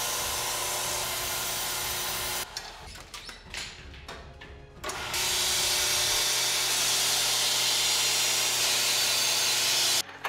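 Belt grinder running with a steel knife blade held against the abrasive belt, a steady grinding hiss. It drops away for about two and a half seconds, leaving a few light clicks and knocks, then resumes and cuts off just before the end.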